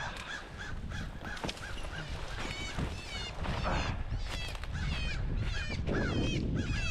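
An animal calling over and over in a quick steady series, about three short high calls a second, the calls getting higher and wavering from about the middle, over low rustling and handling noise.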